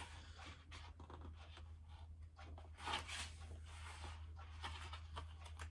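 Faint rustling of paper as a journal booklet is handled and its pages turned, a little louder about three seconds in, over a low steady hum.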